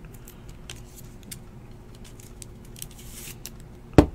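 Faint small clicks and a soft plastic rustle as a trading card is handled and slipped into a clear hard plastic card holder, ending in one sharp click as the holder is closed or set down.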